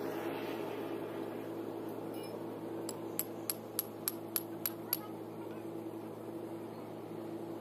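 A steady mechanical hum, with a quick, evenly spaced run of eight sharp metallic clicks about three seconds in.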